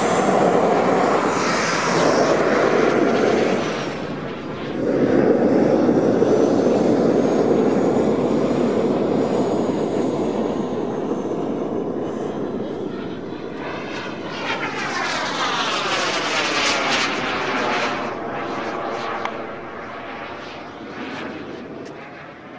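Gas-turbine engine of a radio-controlled model BAE Hawk jet in flight: a steady rushing roar with a thin high whine. It dips about four seconds in, swells again, shifts and sweeps in tone as the jet passes, then fades away near the end.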